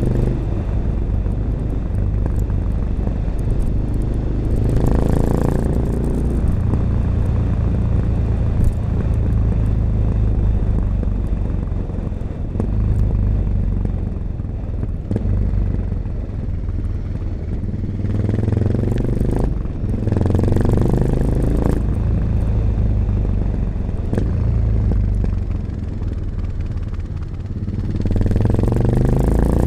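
1986 Honda XL600RM single-cylinder four-stroke engine running through an XRacing aftermarket exhaust with dB killer, the bike under way. It pulls harder, with rising revs, about five seconds in, again around eighteen to twenty-one seconds, and near the end, and eases off in between.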